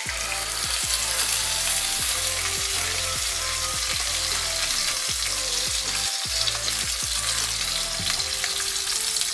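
Chicken pieces sizzling steadily as they are laid into hot oil in a frying pan.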